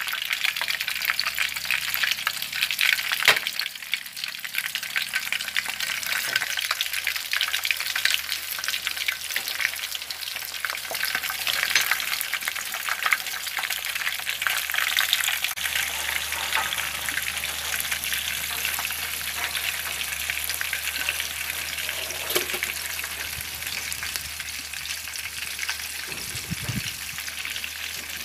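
Egg-battered baguette slices topped with shrimp deep-frying in a pan of hot oil, a steady sizzle, with one sharp tap about three seconds in.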